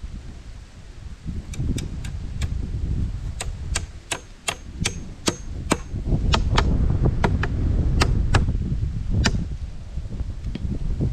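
A hatchet used as a hammer, knocking on a frame of peeled wooden poles: about twenty sharp knocks, two or three a second, some with a brief high ring. They start about a second and a half in and stop near the end, over a low rumble.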